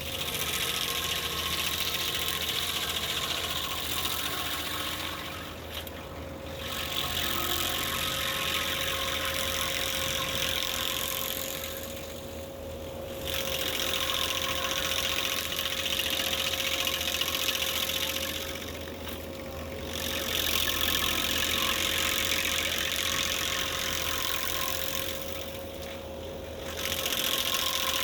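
Skid-steer-mounted Miller stump grinder at work: the machine's engine and hydraulics run with a steady whine while the grinding wheel chews into a stump. The grinding surges in repeated passes of about five to six seconds, with short lulls between them.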